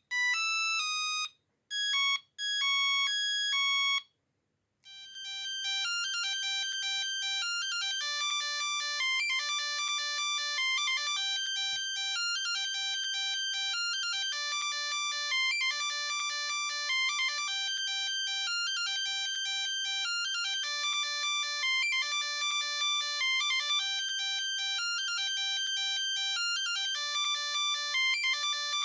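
Siemens A36 mobile phone playing its built-in monophonic ringtones as electronic beeping melodies: one tune ends about four seconds in, and after a short pause another, longer tune of quick beeping notes begins.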